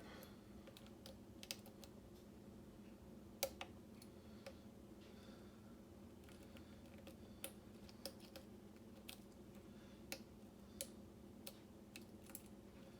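Faint, scattered clicks of a lock pick working the pins of a Schlage mortise cylinder under tension, with the lock sitting in a false set; about ten clicks, irregularly spaced. A low steady hum runs underneath.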